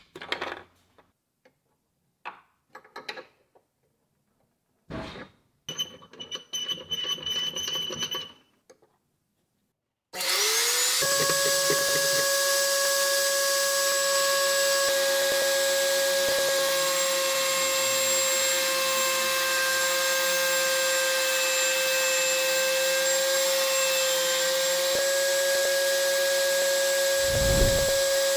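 A few light taps and rustles of hands on the table, then about ten seconds in a plunge router mounted upside down in a router table is switched on: it spins up in a fraction of a second and runs steadily at full speed with a high steady whine, its chamfer bit spinning freely. Near the end the sound changes slightly as MDF is brought to the bit.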